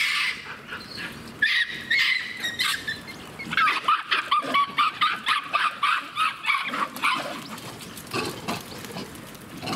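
A troop of Japanese macaques calling all at once as they crowd onto scattered feed: a din of short, high calls from many monkeys, thickest in a rapid run of about five calls a second from the middle of the stretch, then thinning out near the end.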